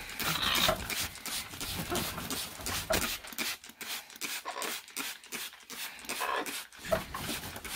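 Pet parrot under a shower: irregular spraying and splashing of water, with a few short chirps from the bird.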